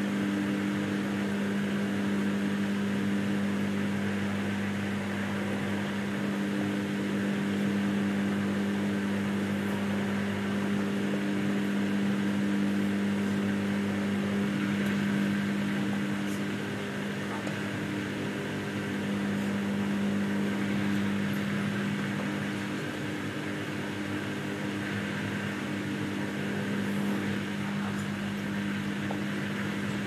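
Samsung Ecobubble 8kg front-load washing machine running mid-wash, a steady, even motor hum.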